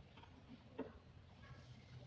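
Near silence: a faint steady low hum with a few small ticks, the clearest just under a second in.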